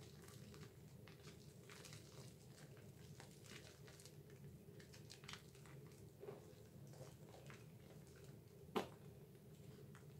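Faint, wet clicks and squelches at an irregular pace from thick Dove bar soap lather being worked between hands, with one sharper click near the end.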